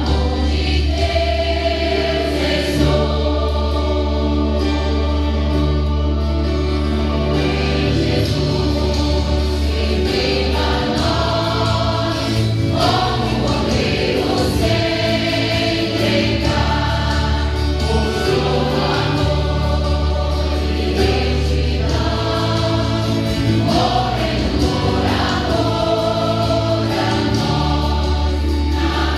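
Women's choir singing a Portuguese gospel hymn over instrumental accompaniment with sustained bass notes.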